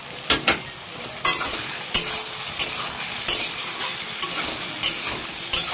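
A spatula scrapes against a wok (kadai) as it stirs fried potato cubes and peas through sizzling spiced masala. Sharp scrapes come about one to two times a second over a steady sizzle.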